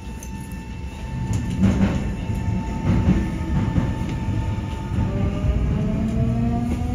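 Nankai 8300-series electric train running on the rails with steady wheel-and-track rumble. From about five seconds in, the whine of its VVVF inverter traction motors rises in pitch as the train accelerates.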